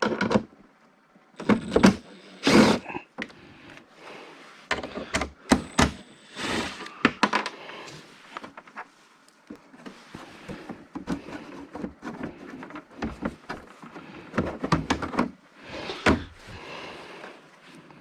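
Steel parts being handled and moved about: a string of clunks, knocks and scrapes of metal, with a couple of loud knocks about two seconds in and another near the end.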